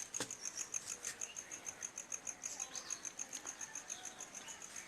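Cricket chirping steadily, a short high-pitched pulse repeated about nine times a second.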